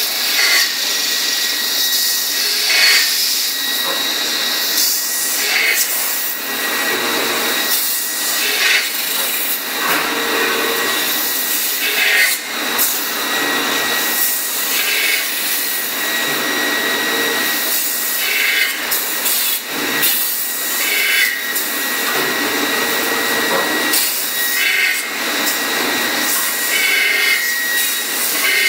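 Leifeld PNC 106 CNC metal-spinning lathe running: a steady noisy rush with two high whining tones over it, and short louder surges every two to four seconds.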